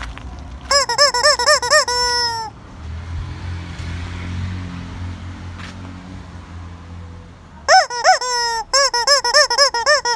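Hen cackling in two bouts, one about a second in and one near the end: a quick run of short rising-and-falling clucks ending in a longer drawn-out note. A low steady rumble fills the gap between the bouts.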